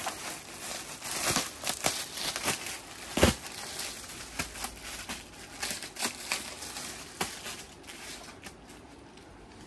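Rustling and crinkling of cloth garments being handled and unfolded, in irregular sharp rustles that are busiest in the first few seconds and die down toward the end.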